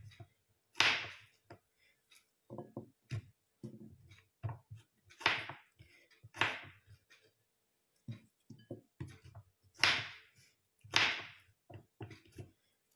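Kitchen knife slicing a cucumber on a wooden cutting board: irregular cuts, about five of them crisp and louder, with softer knocks of the blade on the board in between.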